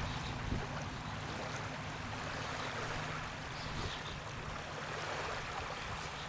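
Small waves lapping and washing onto a stony lakeshore, a steady even wash, with a faint low hum underneath.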